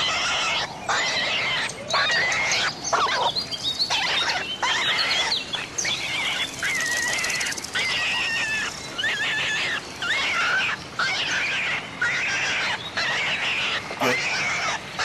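A gopher's high, squeaky chattering calls, repeated in short warbling bursts with brief gaps between them.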